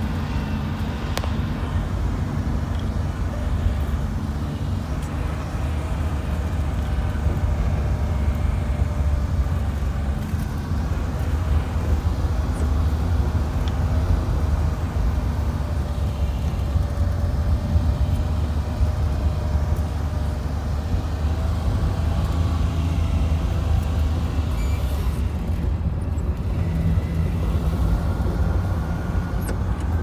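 A vehicle's engine and tyres heard from inside the cabin while driving: a steady low rumble with a faint engine hum that drifts gently in pitch.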